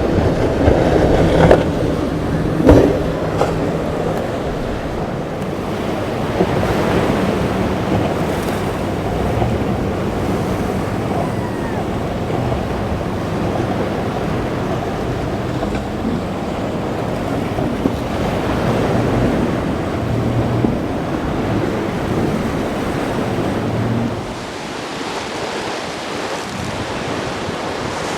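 Surf breaking and wind buffeting the microphone, with a boat's engines droning low underneath. There are a few sharp thumps in the first three seconds. The engine hum fades out about 24 seconds in, leaving the softer sound of waves.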